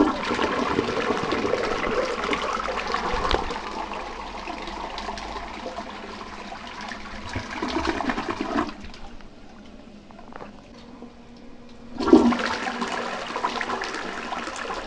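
Toilet flushing: a sharp click as it is pushed, then loud rushing water for about nine seconds that drops away, and a second loud surge of water about twelve seconds in.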